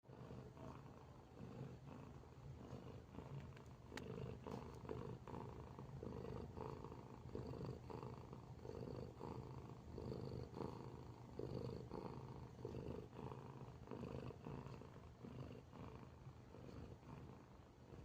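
A cat snoring softly: a steady low rumble that swells and eases with each breath, about once a second.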